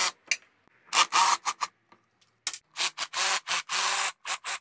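Cordless drill driving a socket extension, run in about a dozen short trigger bursts of varying length, undoing the bolts that hold the bodywork around the radiator fan.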